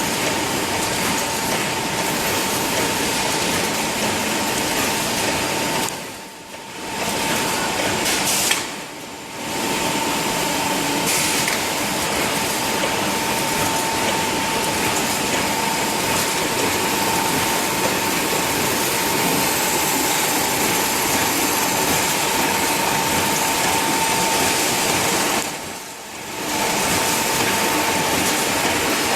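Automatic wire mesh welding machine running: dense, steady mechanical noise with a constant high tone through it. It drops off briefly three times.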